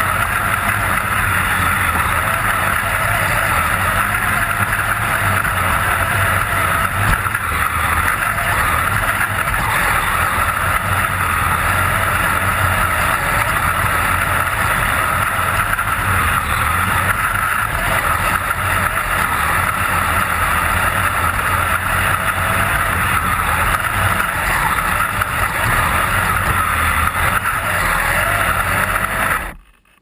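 Kyosho Blizzard SR RC snowcat's dual electric motors and gear drives running steadily as it crawls through snow, recorded up close from on board, with a faint whine that wavers in pitch as the speed changes. The sound cuts out abruptly just before the end.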